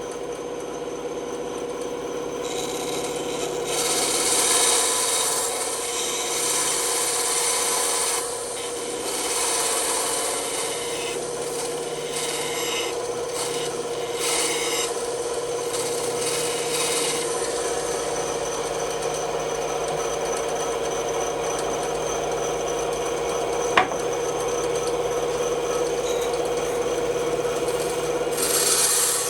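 Bandsaw running with a steady motor hum while its blade cuts through wood. The cutting noise rises and falls as the piece is fed and turned, and there is a single sharp click about three-quarters of the way through.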